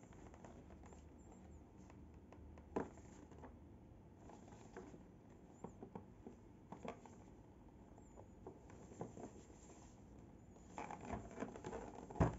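Faint handling of a cardboard box: fingers rubbing and tapping on the card as it is turned over, then a louder knock near the end as the box is set down on the desk.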